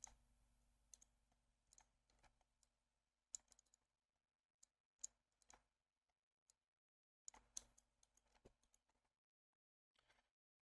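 Near silence with faint, irregular clicks of a computer mouse and keyboard in use.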